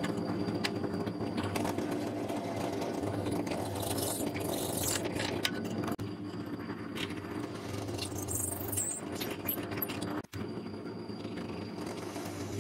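Drill press running steadily, its bit cutting through a steel cleaver tang and wooden handle scales with scratchy grinding over the motor hum. The sound drops out for an instant about ten seconds in.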